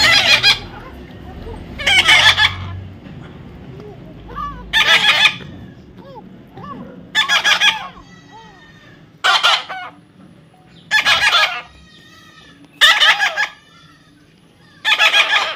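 Baby parrot calling with harsh, loud squawks, about eight of them spaced roughly two seconds apart, with faint chirps in between.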